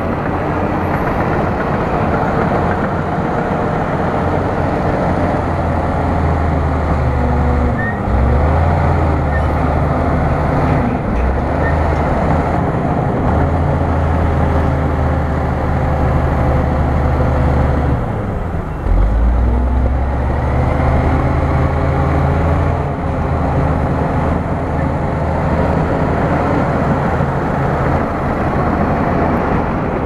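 Bulldozer's diesel engine running with a steady low drone. Twice, about a quarter of the way in and again a little past the middle, its pitch dips sharply and climbs back.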